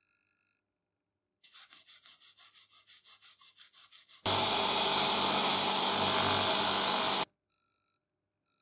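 A steel wire part scrubbed by hand with a scrubbing pad: quick rubbing strokes, about seven a second. About four seconds in, a much louder power tool with a low motor hum cuts in, runs steadily for three seconds and stops abruptly.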